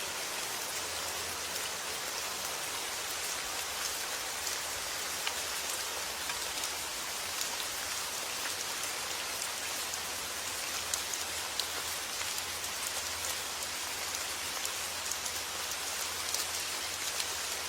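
Steady summer rain falling on a surface, an even hiss with many individual drops pattering through it.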